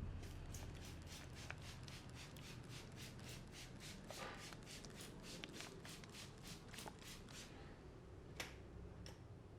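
Rapid, even hand strikes of a barber's head massage, palms or fingers slapping on the head and hair at about four a second. They pause near the end, with one sharper click.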